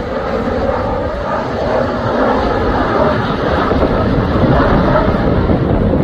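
Embraer E190 regional jet's turbofan engines at approach power on final approach with gear down: a loud, steady jet noise that gets a little louder near the end.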